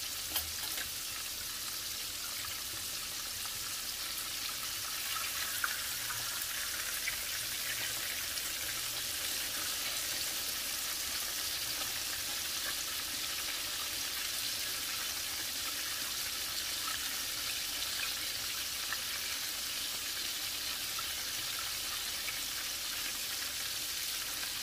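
Battered turkey thighs deep-frying in hot oil in a cast-iron skillet: a steady sizzle.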